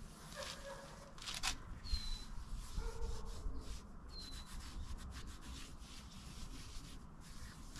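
A hand wiping down the metal table of a radial drill, rubbing over the metal in a run of short, irregular strokes, with one sharper knock about one and a half seconds in.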